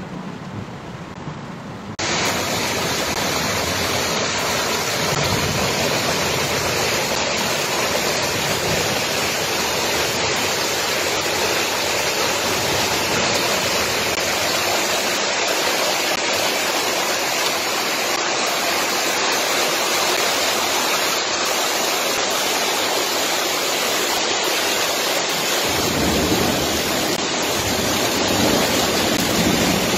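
Floodwater rushing down a street in a torrent: a loud, steady rush of water that comes in suddenly about two seconds in, after a quieter stretch, and turns a little deeper near the end.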